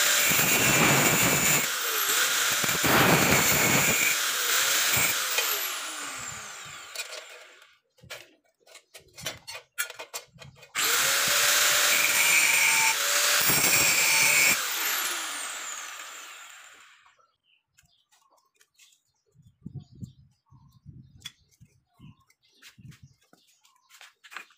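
A 100 mm angle grinder run twice against the end of a galvanized steel box section, grinding the edge. Each run lasts a few seconds, then the motor winds down with a falling whine; a few clicks come between the runs, and light metal handling comes near the end.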